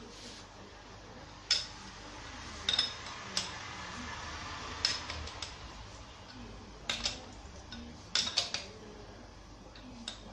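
Sharp metal-on-metal clinks and taps from a wrench and bare engine parts being handled, a dozen or so spread through, some in quick pairs or triples, each with a brief high ring.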